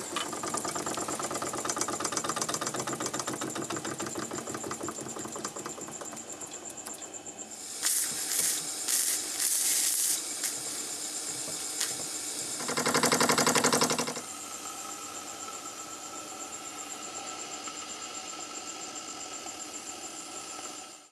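Scorpion toy steam engine running fast, with a rapid, even chuffing and a steady steam hiss. Several short, sharp bursts of hissing steam come around eight to ten seconds in, and a louder burst lasting about a second follows around thirteen seconds.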